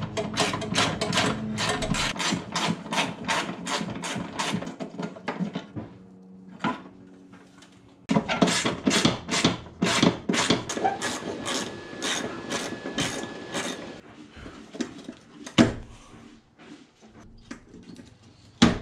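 Hand ratchet wrench clicking rapidly, about four clicks a second, as the radiator's mounting bolts are backed out. It comes in two long runs with a short pause about six seconds in, then scattered clicks and a sharp knock near the end.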